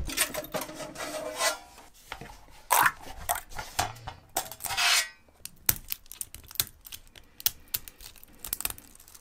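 White PETG 3D-printed part being worked off a textured steel build sheet with rubbing and scraping sounds. From about halfway through, support material is snapped and picked off the part by hand in separate small cracks and clicks.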